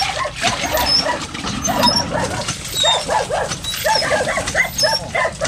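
Rapid, repeated short animal calls, several a second, growing stronger about two seconds in.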